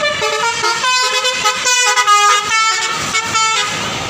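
A bus's telolet basuri musical horn playing a quick tune of short stepped notes, stopping a little over three and a half seconds in.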